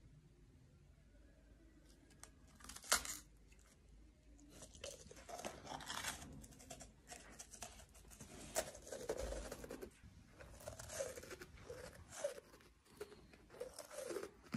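A man chewing a crunchy, burnt homemade cake close to the microphone: faint, irregular crunching and mouth noises that begin about two seconds in and go on in short bits.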